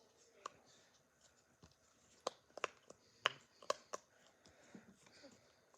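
Irregular sharp clicks and taps from small plastic fidget toys being handled, about a dozen in all, most of them bunched between two and four seconds in.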